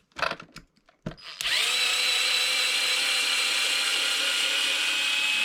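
Power driver taking out a steel screw from an RC truck's plastic rear bulkhead. First there are a few sharp clicks as the bit seats. About a second and a half in, the motor spins up to a steady whine and keeps turning.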